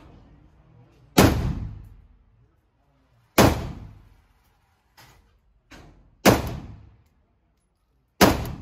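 AK-74 rifle in 5.45×39 mm fired in slow, aimed single shots, four loud cracks about two seconds apart, each ringing off the walls of an indoor range. Two fainter cracks fall between the third and fourth shots.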